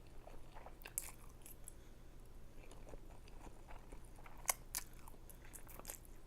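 Close-miked chewing of spicy ramen noodles, with wet mouth clicks and a few sharper clicks, the loudest about four and a half seconds in.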